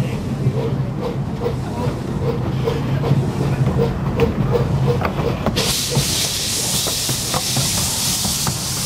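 381 mm gauge steam locomotive moving off slowly, a low rumble with a light regular beat about twice a second. About five and a half seconds in, a loud steam hiss starts suddenly as condensate blows out of the cylinder pipes.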